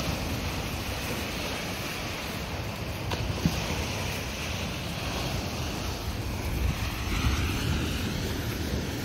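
Lake Erie waves washing in steadily, with wind buffeting the microphone in low rumbling gusts. A short knock comes about three and a half seconds in.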